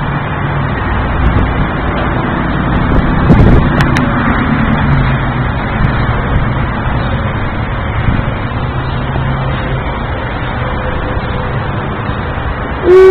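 Road traffic heard from the roadside: cars passing with a steady rush that swells about four seconds in. Right at the end comes a short, loud tone falling in pitch.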